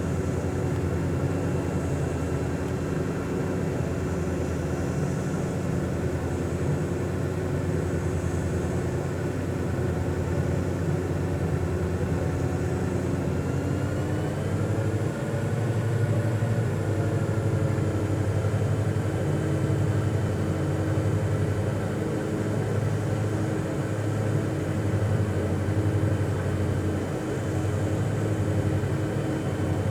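A steady motor drone made of several held tones over a low hum; about halfway through, some of its higher tones glide up and settle at a new pitch.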